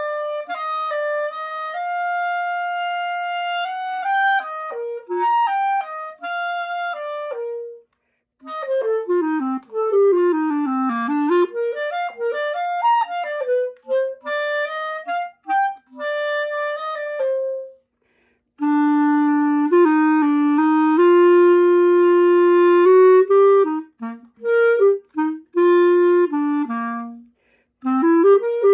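Solo instrumental music: a single wind-like instrument playing one melodic line of held notes, with quick runs sweeping down and back up, then a lower passage of longer notes. The melody breaks off briefly twice.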